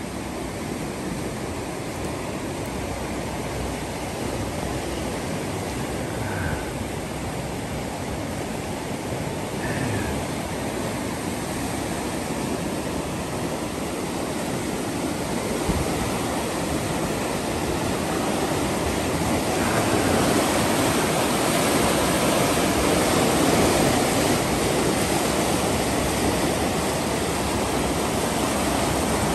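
Flooded creek rushing over its banks, a steady churning roar of fast muddy floodwater that grows louder about two-thirds of the way through.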